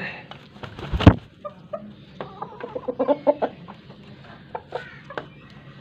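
Chickens clucking, a quick run of short clucks about two to three and a half seconds in, with a sharp knock about a second in that is the loudest sound.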